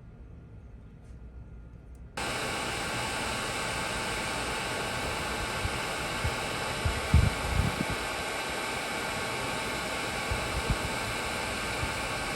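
Hot air rework gun switched on about two seconds in, its fan blowing with a steady hiss, as used to desolder a PS4's HDMI port. A few soft bumps near the middle.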